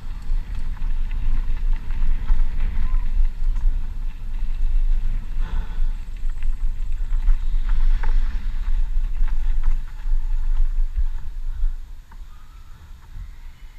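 Low rumble of wind buffeting the microphone, with scattered faint clicks; the rumble drops away sharply near the end.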